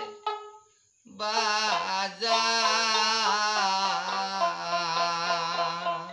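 A man singing a Bengali folk song. After a brief pause about a second in, he holds one long, wavering note, accompanied by a long-necked plucked lute.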